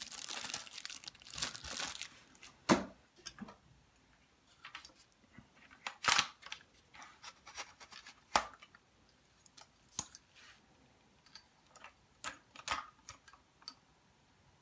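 Packaging being handled during an unboxing. Paper and plastic rustle and crinkle for the first couple of seconds, then several separate sharp knocks and clicks follow as the items are handled.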